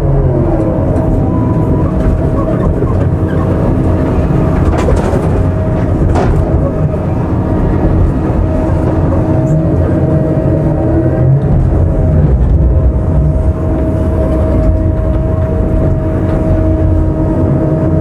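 Diesel engine and hydraulics of a log-grapple material handler running steadily under load as the grapple swings, grabs and lifts logs, a low drone with a steady whine over it.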